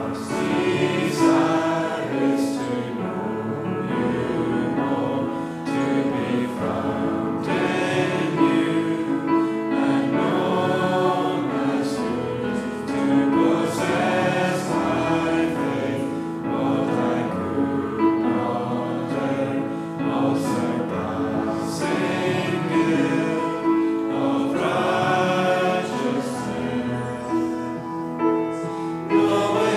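A choir singing a sacred song in held notes.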